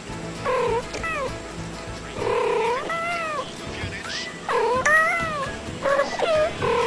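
Two domestic cats meowing at each other in chirping, trilling calls, four calls in turn, each rising and falling in pitch.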